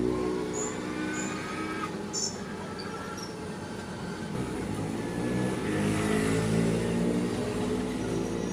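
A motor or engine running steadily, its pitch drifting slowly, with a few light metallic clinks in the first two seconds.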